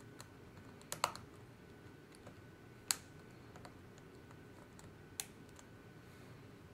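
MacBook Pro keyboard keys and keycaps clicking: a few sharp, separate clicks, a quick cluster about a second in, the loudest near three seconds in and another a couple of seconds later.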